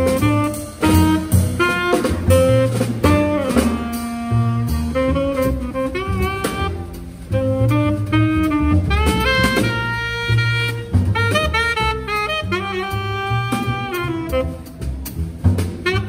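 Live jazz trio of tenor saxophone, plucked double bass and drum kit playing. The saxophone carries a melody line of quick runs of notes with short slides between them, over a walking bass and the drummer's cymbals and drums.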